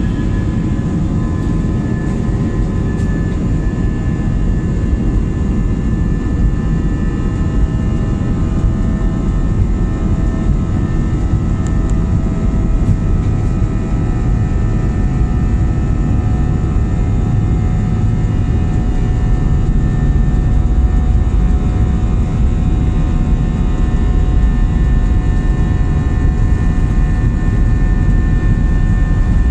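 Airbus A320 jet engines running: a steady low rumble with a steady high whine, growing a little louder about two-thirds of the way through.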